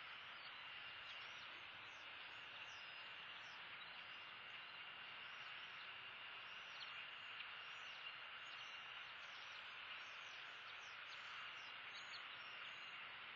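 Faint outdoor ambience: a steady hiss with a thin steady high tone, dotted with many faint high chirps.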